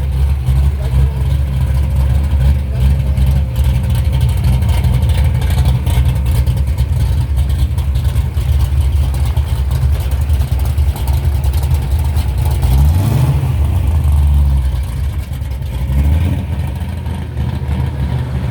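Hot rod V8 engine running with a heavy low rumble, revved briefly about 13 seconds in and again about 16 seconds in.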